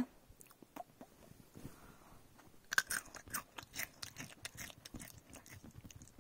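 Crunching, chewing-like sounds of crisp food pieces. A quick run of sharper crunches comes about three seconds in, followed by lighter scattered crunches.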